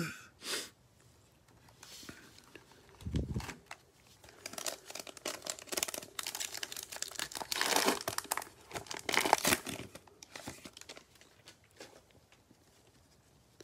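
Plastic wrapper of a sealed trading-card fat pack being torn open and crinkled by hand, in dense bursts over several seconds. A soft low thump comes about three seconds in.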